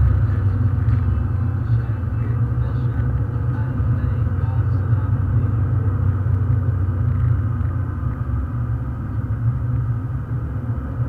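Car engine and tyre noise heard from inside the cabin while driving at a steady speed: a steady low rumble that eases slightly near the end.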